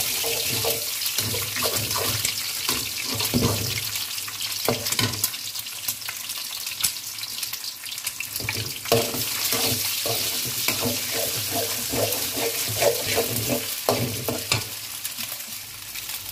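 Eggs sizzling in hot oil in a metal kadai, with a metal spatula repeatedly scraping and tapping against the pan as the eggs are broken up and stirred.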